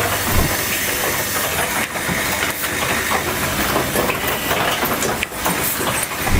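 Cable holder terminal assembly machine running: a steady hiss of air with frequent sharp mechanical clicks.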